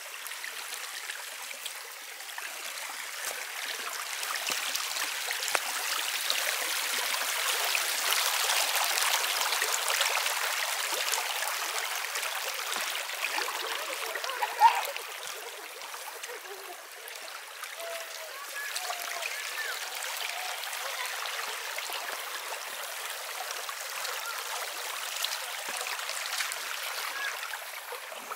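Small shallow stream running fast over rock and mud, a steady rushing that grows louder for several seconds in the first half. About halfway through there is one brief sharp click.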